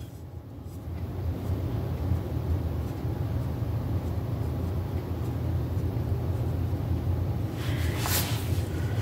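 A steady low rumble with no speech, and a brief rustle about eight seconds in.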